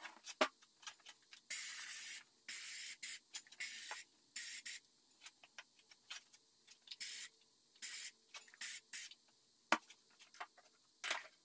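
Handheld electrostatic powder coating gun spraying powder in a string of air hisses, mostly short puffs with a few lasting about a second, with a couple of sharp clicks between them.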